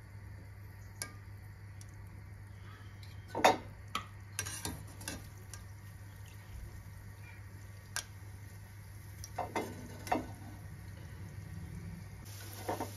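Gulab jamun balls frying gently in oil in a steel pan on a low flame, with a faint sizzle. A wire skimmer knocks and scrapes against the pan several times as the balls are turned, loudest about three and a half seconds in.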